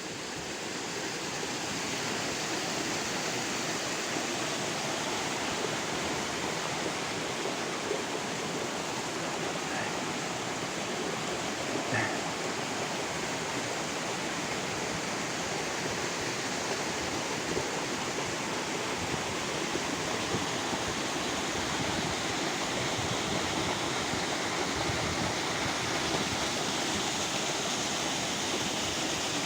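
Steady rush of fast-flowing water, a dense even noise that swells in over the first couple of seconds and then holds.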